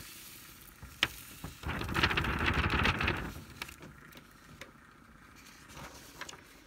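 Loose chunky glitter sliding off a folded sheet of paper into a small glass jar, with the paper rustling: a dense run of tiny clicks for about a second and a half, after a single tap and followed by a few light ticks.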